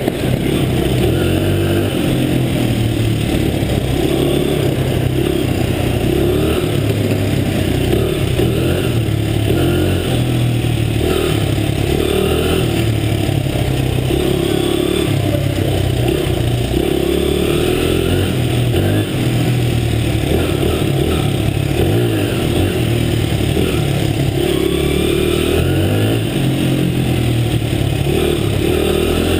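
Motorcycle engine running and revving up and down again and again as it is ridden, heard close up from a helmet-mounted camera.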